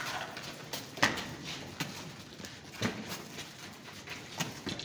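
Military boots striking hard ground, about six separate knocks at uneven intervals, over a steady background hiss.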